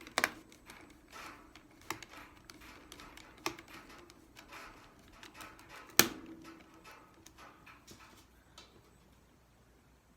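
Small Phillips screwdriver driving screws into a Chromebook's chassis and screws and tools being handled: light clicks and short scratchy turning sounds, with a sharp click just after the start and the loudest click about six seconds in.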